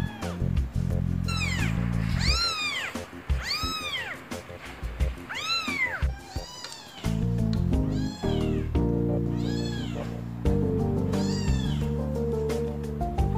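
Young kitten, about three and a half weeks old, mewing over and over: high, arching calls about one a second. Background music plays underneath and drops out for a few seconds in the middle.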